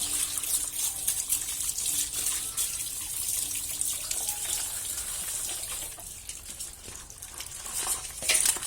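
Water running steadily from a tap, with a sharper knock or splash near the end.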